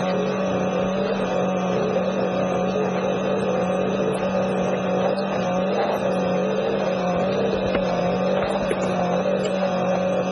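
Small outboard motor pushing a sailboat, running steadily at constant speed with an even hum.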